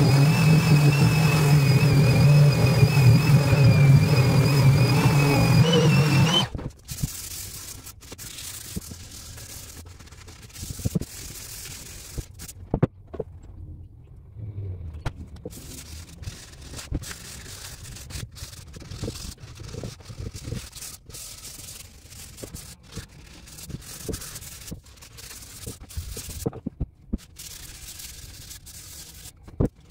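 Corded detail sander with a triangular pad sanding a black walnut leg frame: a steady motor hum with a high whine, switched off abruptly about six seconds in. After that, scattered light knocks and rubbing as the wooden frame is handled.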